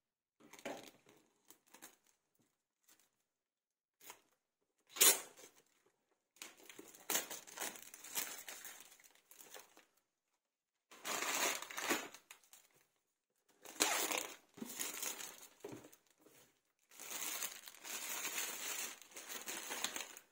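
Clear plastic shrink wrap being torn and peeled off a cardboard box, crinkling in several separate bursts of a second or more, with one sharp snap about five seconds in.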